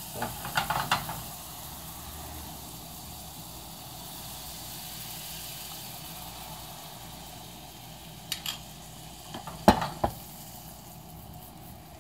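Butter sizzling steadily in a nonstick frying pan as pancake batter is poured in, with a few short knocks, the loudest about ten seconds in.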